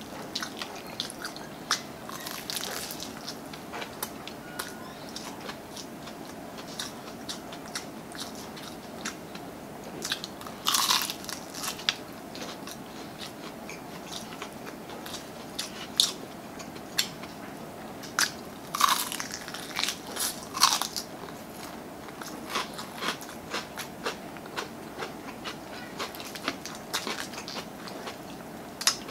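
Crispy breaded fried chicken being torn by hand, bitten and chewed close to the microphone: a steady string of crisp crunches, with a few louder bursts of crunching around the middle and later on.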